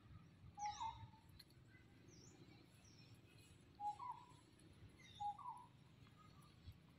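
Three short animal calls, each a quick pitched note with a slight rise and fall, about a second in and twice more around four and five seconds in, with faint high chirps between them.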